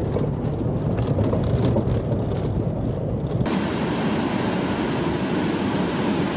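Low rumble of a car driving, heard from inside the cabin; about three and a half seconds in it cuts to the steady rush of whitewater rapids.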